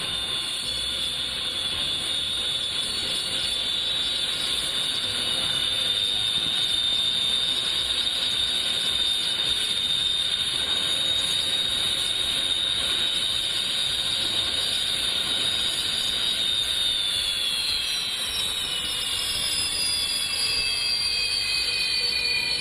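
Sukhoi Su-30MKI fighter's twin AL-31FP turbofan engines running with a steady high-pitched whine of several close tones, the pitch gliding down over the last few seconds.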